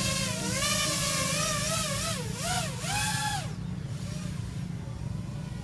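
Racing quadcopter's four mismatched brushless motors whining, the pitch swinging up and down with the throttle as it lifts off and climbs. About three and a half seconds in, the whine drops away sharply as the quad climbs out of range. A steady low rumble runs underneath.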